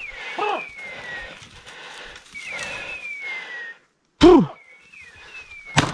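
A single sharp shotgun shot just before the end, ringing on afterwards. Before it come several falling whistled calls and two short, loud calls, the louder one about four seconds in.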